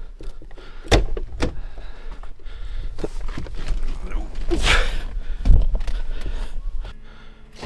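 Clunks and knocks of an old Ford's door and cab being handled before starting: a sharp knock about a second in, a short rush of noise, then the loudest thump about five and a half seconds in.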